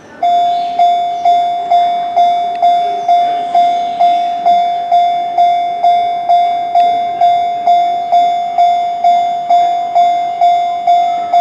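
Japanese railway level-crossing alarm ringing: a single clanging tone repeated about twice a second, starting suddenly just after the start, warning that a train is approaching.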